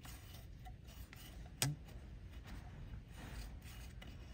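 Faint handling noises, light scraping and fiddling, with one sharp click about one and a half seconds in, over a low steady hum.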